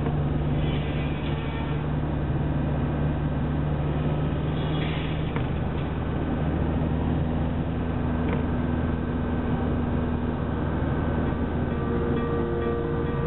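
Steady engine hum and tyre-and-road noise heard from inside a moving car's cabin, holding an even level throughout.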